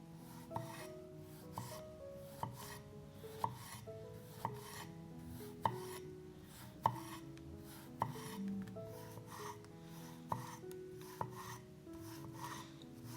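Rhythmic rasping, scraping strokes of food being cut or grated in a kitchen, a little more than two a second, with sharp knocks about once a second, over soft background music.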